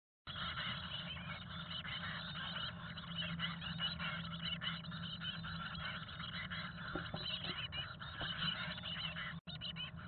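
Chickadee nestlings begging at a feeding: a dense, continuous chatter of many high, rapid calls from the brood in the nest box, over a low steady hum, cutting out briefly near the end.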